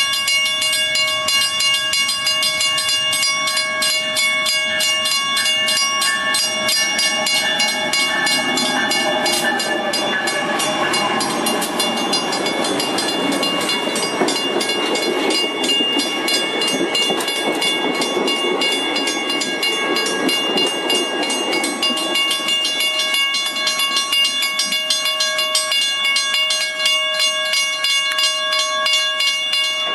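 Level-crossing bell ringing rapidly and continuously as a diesel-electric train passes the crossing. The rumble of the AC44i locomotive and its cars' wheels swells from about eight seconds in, is loudest mid-way, and fades after about twenty seconds, while the bell keeps ringing.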